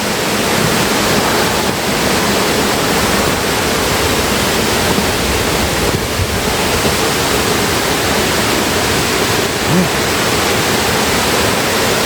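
River waterfall cascades: a loud, steady rush of falling water.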